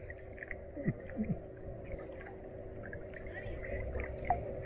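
Puppy whining softly close to the microphone: a few short falling whines, over a faint steady hum.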